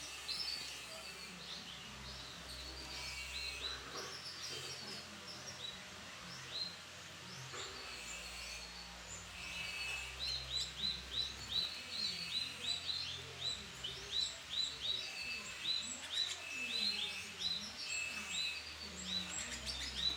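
Domestic canary chirps and calls: short upward-curving chirps mixed with brief held whistled notes, coming quicker and louder, about two or three a second, in the second half.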